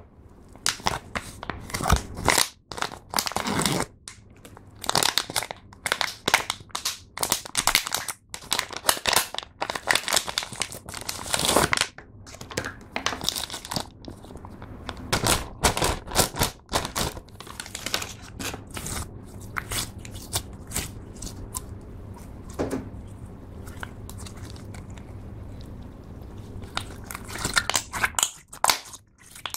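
Thin plastic packaging crinkling and crackling in the hands as a packet of gel slime is opened and the slime is squeezed out of its bag. The crinkling is dense for the first half, eases off a little past halfway, and picks up again briefly near the end.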